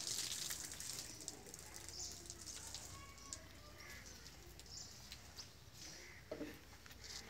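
Faint outdoor ambience with a few short, high chirps near the middle, scattered light clicks and one soft knock about six seconds in.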